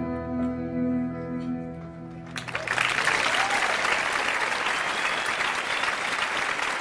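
Performance music ends on a held chord. About a third of the way in, an audience breaks into applause that carries on to the end.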